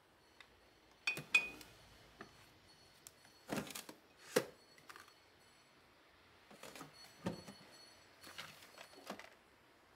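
Plastic storage baskets being slid out of and pushed back onto a cabinet shelf: a string of light knocks and scrapes, with a clink from the bottles inside. The sharpest knocks come about a second in and again at about four seconds.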